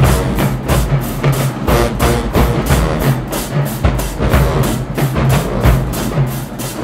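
Marching band music driven by a fast, steady drum beat, about four hits a second, with bass drum and low notes underneath.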